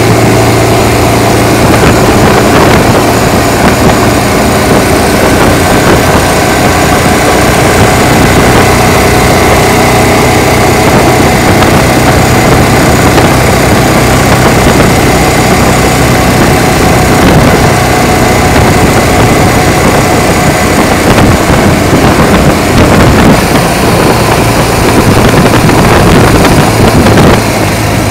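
Motorcycle with sidecar under way at a steady cruise, its engine running evenly under heavy wind and road noise. The engine note drops a little near the end.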